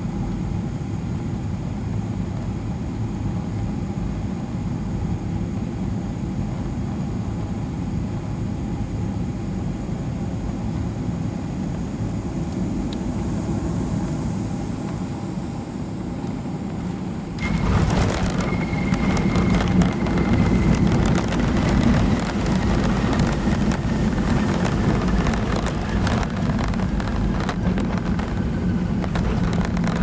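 Cabin sound of an ANA Boeing 737-800 on final approach, its CFM56 engines and the airflow giving a steady drone. About 17 seconds in, the main wheels touch down and a louder, juddering runway rumble takes over for the landing roll, with a faint high whine slowly falling in pitch.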